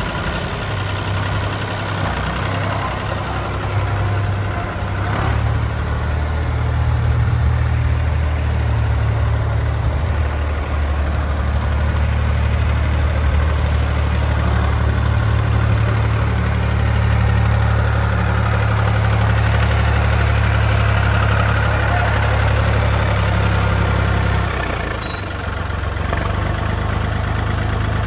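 Universal 445-DT tractor's diesel engine running steadily with a low note as the tractor is driven about. The engine eases off briefly near the end, then picks up again.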